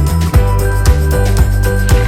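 Background music with a steady beat, about two beats a second over sustained chords.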